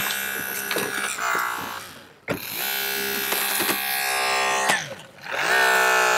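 Holmatro hydraulic rescue cutter's motor whining steadily under load as it cuts a car's roof pillar, with sharp cracks of metal giving way. The whine drops out twice, about two and five seconds in, and comes back rising in pitch as the tool is worked again.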